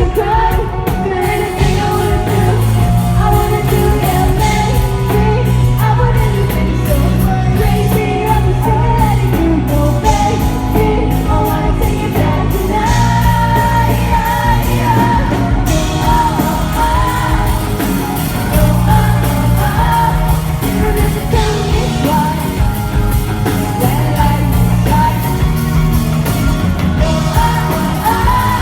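A pop-rock band playing live, with lead vocals over bass, drums and guitar. It is a loud, unbroken stretch of the song, with some shouting from the crowd.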